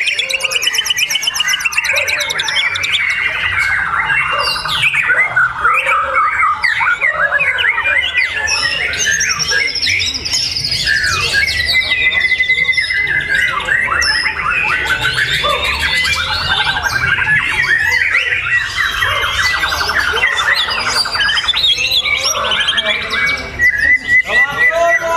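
A songbird singing a long, unbroken, varied song of rapid trills, quick sweeping whistles and chattering phrases.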